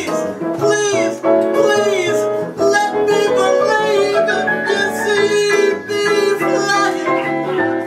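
Live jazz: a woman's voice singing with acoustic piano and upright bass accompaniment.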